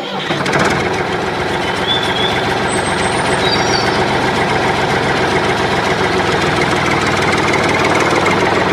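Tractor engine running steadily with a fast, even knock, loud and unchanging, cutting in suddenly and stopping just as suddenly.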